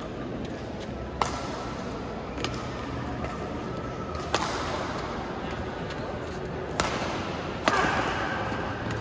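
Badminton rally: rackets striking the shuttlecock five times in sharp cracks one to two and a half seconds apart, the last hit the loudest and longest-ringing.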